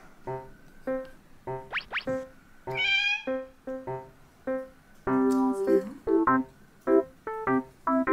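A Scottish Fold cat meows once, about three seconds in, over light background piano music made of short, bouncing notes.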